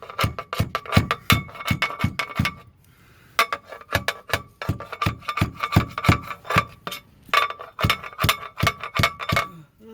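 Quick, steady hammer blows on a metal fitting at the mast, about three or four a second, each ringing, with a short pause about three seconds in: the fitting is being tapped to work it back into place.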